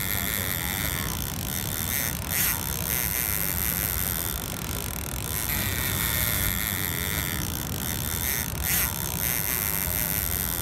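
Avet fishing reel's drag buzzing in two spells as a hooked white sturgeon pulls line off against it, with a couple of short knocks. Underneath is a steady rumble of wind on the microphone.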